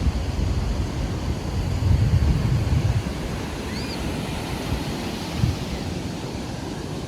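Sea surf washing onto the beach, with wind buffeting the microphone in low rumbling gusts that are strongest about two seconds in.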